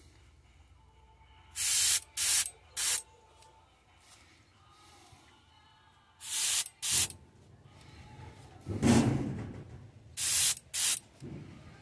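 Airbrush spraying paint through a mesh scale stencil in short hissing bursts: three quick ones, then two, then two more, each under a second long. About nine seconds in there is a louder, duller rush of air.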